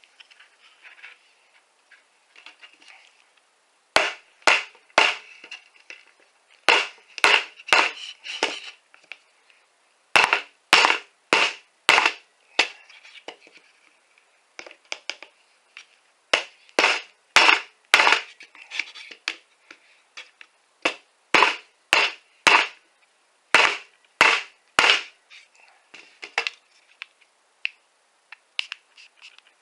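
Batoning: a baton repeatedly knocks on the spine of an Ozark Trail Flipper folding knife to drive its blade through a piece of wood. The sharp strikes come about two to three a second, in runs of several with short pauses between.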